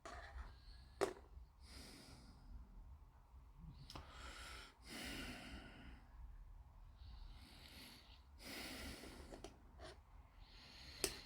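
Faint breathing close to the microphone, in slow soft breaths, with two small sharp clicks, about a second in and near the end.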